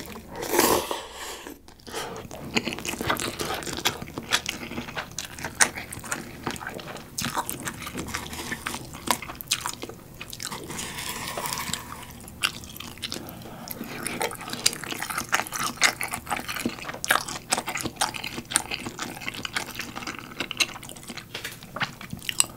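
Close-miked eating sounds: a loud slurp of instant cup ramyeon noodles about a second in, then steady wet chewing of noodles and a shrimp dumpling, full of small mouth clicks.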